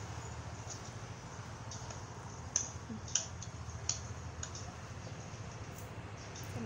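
A steady low hum with a handful of light, sharp clicks scattered through it, the loudest about two and a half and three seconds in.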